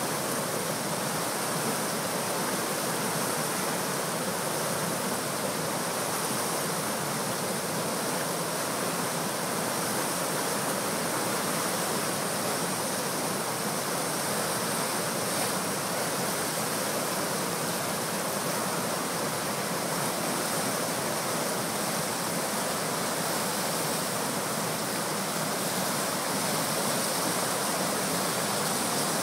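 River rapids and a small cascade, brown floodwater rushing and churning over rocks in a steady, unbroken rush of white water.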